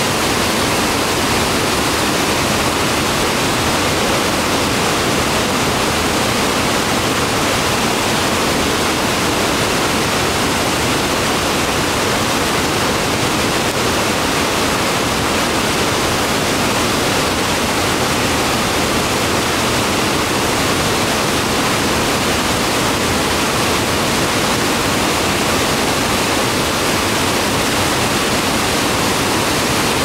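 A large waterfall pouring down onto boulders and cascading over rocks: a loud, steady rush of falling water.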